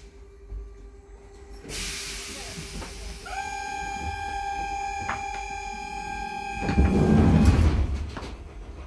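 H5 HÉV suburban train car, heard from inside the car: a hiss of air starts about two seconds in, and a steady horn-like tone follows, lasting about four seconds. A loud low rumble and clatter comes near the end.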